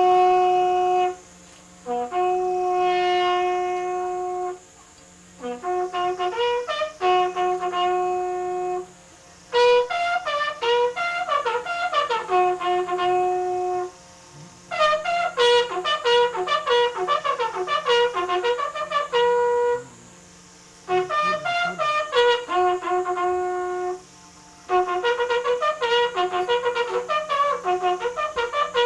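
A military bugle call sounded as a salute, in about seven phrases of long held notes and quick runs of notes, each broken off by a short pause.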